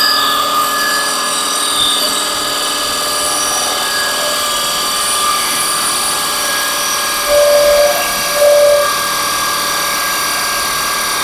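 Electric drill fitted with a cutting blade, running steadily as it cuts through plywood, with two short louder surges a little past the middle.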